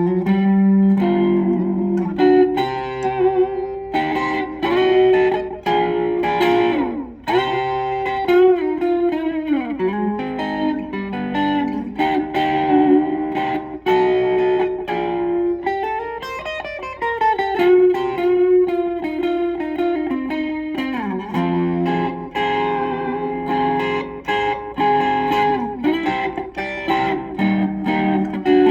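Gretsch 6120 hollow-body electric guitar played through a Blackstar Fly 3 mini amp, improvising rockabilly-style single-note licks and chords, with a few phrases that slide down in pitch.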